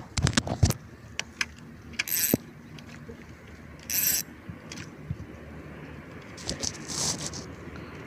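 Clicks and knocks of fishing tackle being handled in a canoe, with two short hissing rushes about two seconds apart.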